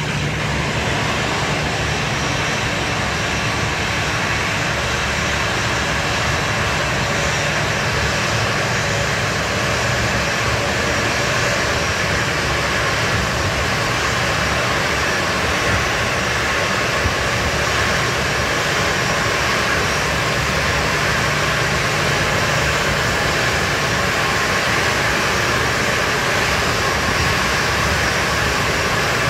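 Boeing 737's twin jet engines at taxi idle: a steady rush with a high whine over a low hum, growing slightly louder as the jet taxis in.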